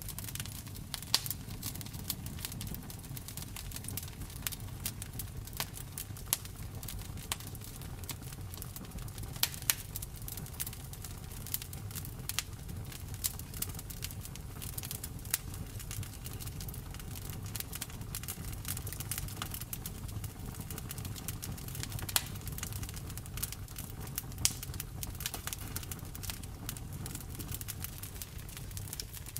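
Campfire burning: wood crackling with irregular sharp pops, several of them much louder, over a steady low rumble.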